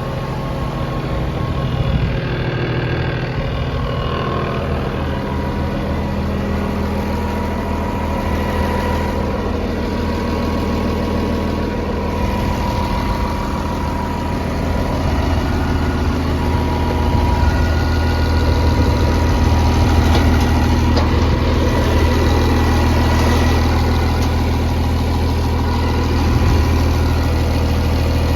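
Case 2050M crawler dozer's diesel engine running steadily, getting somewhat louder about halfway through.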